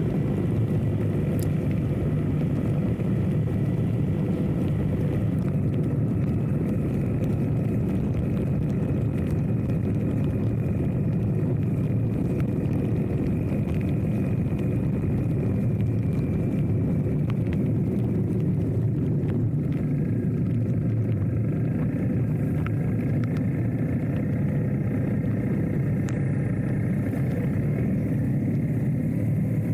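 Motorcycle running at a steady road speed, its engine drone mixed with wind and road noise, while riding through rain.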